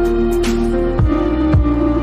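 Background music: slow held synthesizer notes over a steady bass, with low descending swoops about a second apart.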